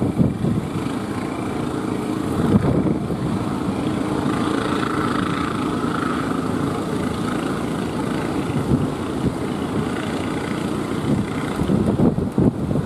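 Wooden fishing boat's engine running steadily under power through the surf, mixed with wind buffeting the microphone and the wash of waves.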